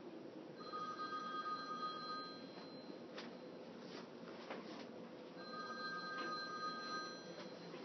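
A telephone ringing twice, each ring lasting about two seconds with a pause of about three seconds between them, over a steady low hum.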